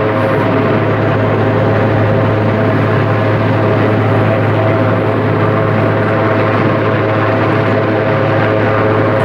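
Eurocopter Puma helicopter hovering, its twin turbine engines and rotor giving a loud, steady drone: a low hum with several fixed higher tones above it.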